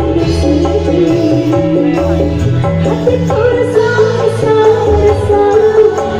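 Dangdut band music: a wavering melody line over a pulsing bass and a hand-drum beat.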